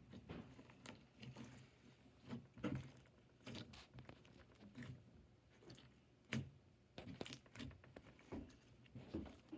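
Crunchy bead-filled slime being squished and poked by hand, giving faint, irregular crackles, pops and squelches, the loudest a little past the middle.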